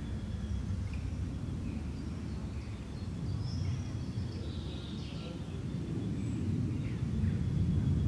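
Outdoor background ambience: a steady low rumble, with a few faint, high bird chirps, most of them around the middle.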